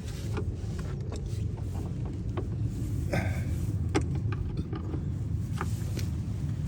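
Scattered light clicks and taps from hands working small screws and plastic parts of a car turn signal lamp, over a steady low hum.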